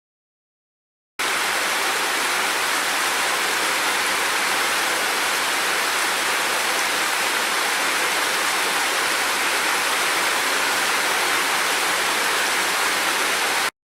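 Steady, even rush of water, starting abruptly about a second in and cutting off suddenly just before the end.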